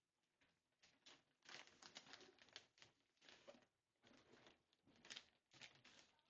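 Faint crinkling and rustling of gift packaging being handled and opened, in a string of short, irregular bursts.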